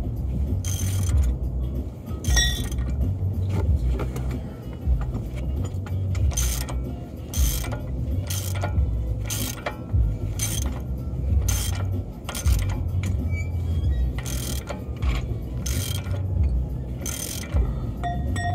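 Hand ratchet wrench being worked on a bolt, its clicking coming in short bursts about once a second over a low steady rumble.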